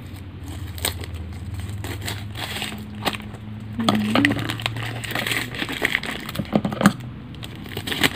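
Packing tape being picked at and peeled off a cardboard box: crackling and crinkling with scattered sharp clicks and scrapes, busier from about halfway in.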